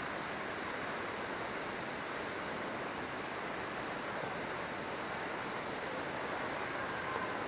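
A river's water rushing steadily over rocks: an even, continuous rush with no breaks.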